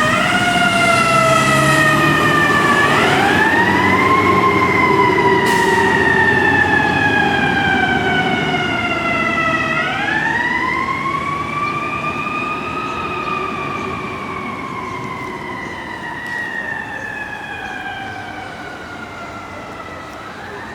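Fire truck siren wailing. Its pitch winds up quickly several times (about 3 s and 10 s in, and again at the end) and then slides slowly down, growing fainter over the second half.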